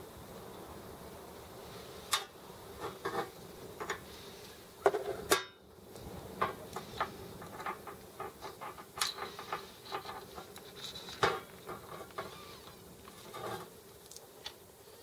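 Small steel parts of a Sturmey-Archer S5C internal gear hub clicking and clinking as it is taken apart by hand, with scattered knocks as parts are unscrewed, lifted out and set down; the loudest come about five seconds in and again about eleven seconds in.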